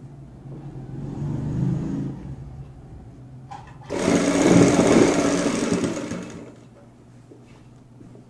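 Domestic sewing machine stitching a seam through layers of fabric in two runs: a short, moderate run about a second in, then a longer, louder run starting about four seconds in that dies away after a couple of seconds.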